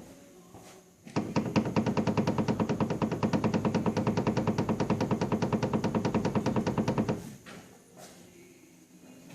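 Steering rack of a first-generation (GG) Mazda6 knocking in a rapid, even rattle of about ten knocks a second, starting about a second in and stopping suddenly after some six seconds: the knock of a worn steering rack.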